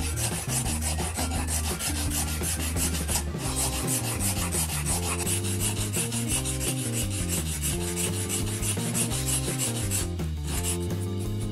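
A scissor blade rubbed back and forth across a wet whetstone: a rapid, even rasping of steel on stone, stroke after stroke, stopping about ten seconds in.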